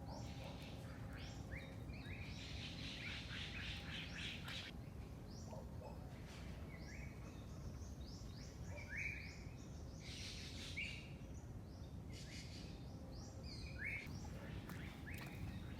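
Several wild birds chirping and calling: short notes that slide up or down, with a fast trill a couple of seconds in, over a steady low background rumble.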